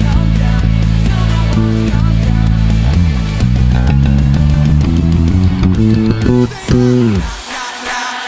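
Electric bass guitar playing along with a full worship-rock band track. It holds low notes at first, moves into a quicker run of notes about three seconds in, and ends with a downward slide, after which the bass drops out and the rest of the band carries on.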